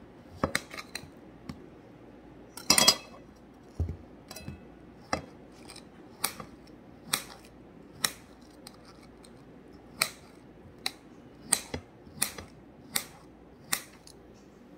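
Kitchen knife slicing a peeled red dragon fruit on a plate, the blade clicking sharply against the plate with each cut, about one stroke a second; the loudest click comes about three seconds in.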